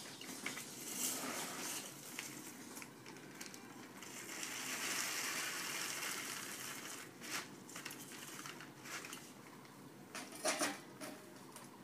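Plastic bag rustling and crinkling as dry tea leaves are scooped out of it, densest a few seconds in. A few light clicks come near the end.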